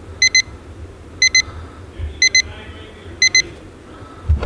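Emerson Research SmartSet digital alarm clock sounding its alarm: a high-pitched double beep about once a second, four times.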